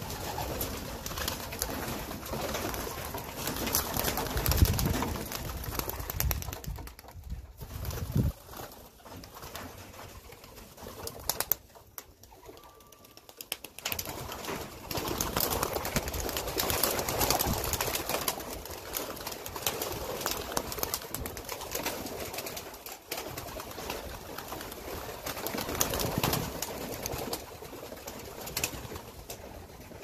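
A flock of young racing pigeons cooing, with many short clicks and scuffs throughout, dropping quieter for a couple of seconds near the middle.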